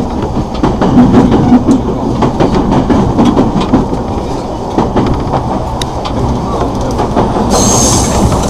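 Electric commuter train running, heard from inside the car: a steady rumble of wheels on the rails with frequent clicks and clacks over rail joints. A high squeal joins in near the end.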